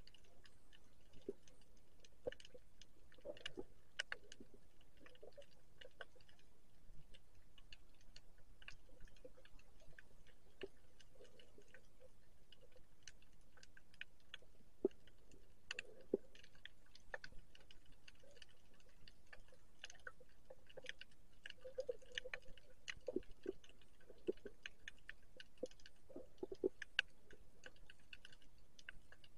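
Underwater ambience over a shallow rocky reef: faint, irregular clicks and crackles with occasional dull knocks, thickening in the last third.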